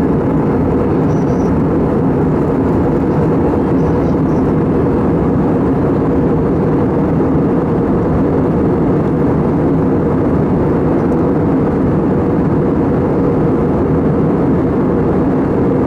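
Airbus A320 jet engine and airflow noise heard inside the passenger cabin: a steady, dense rushing hum, heaviest in the low range.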